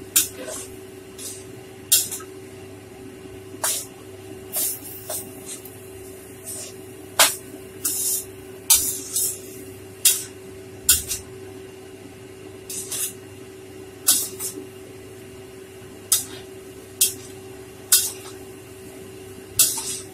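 Metal ladle and spatula scraping and clinking against a wok while rice vermicelli with cabbage and carrot is stir-fried, strokes at uneven intervals about once a second, some in quick pairs. A steady hiss and a low hum run underneath.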